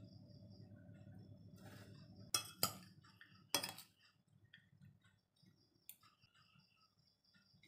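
A metal serving spoon clinks against a ceramic plate three times, twice close together about two and a half seconds in and once more a second later, as fried anchovies are spooned out.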